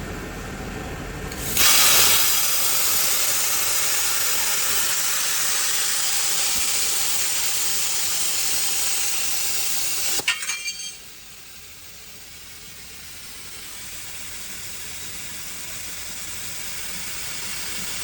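Portable CNC cutting machine's torch cutting metal, giving a loud steady hiss that starts suddenly about a second and a half in. The hiss stops with a few crackles about ten seconds in, and a quieter hiss then slowly builds.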